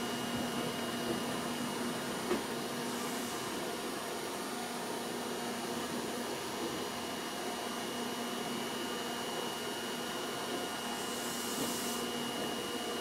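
Fukui Railway type 770 tram heard from inside the cab while running along street track: a steady mechanical hum with a thin constant high whine. There is a single light knock about two seconds in and a brief hiss near the end.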